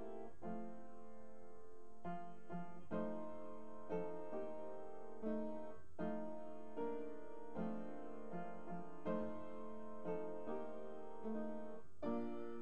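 Solo piano music: a slow, gentle melody with sustained chords, notes struck at an even, unhurried pace.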